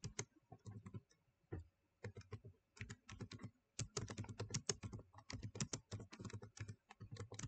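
Typing on a computer keyboard: irregular key clicks, sparse at first and coming quicker from about three seconds in.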